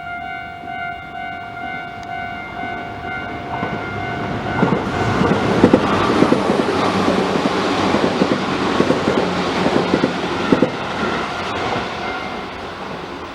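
Tobu Railway level-crossing electronic warning bell ringing, then a Noda Line train passes over the crossing from about four seconds in, its wheels clacking over the rail joints and drowning out the bell. The train noise fades near the end.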